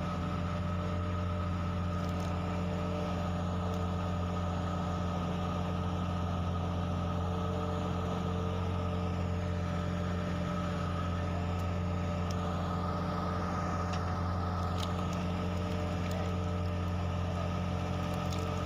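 Fishing boat's engine running steadily at sea: an unchanging low drone with a few steady higher tones over it.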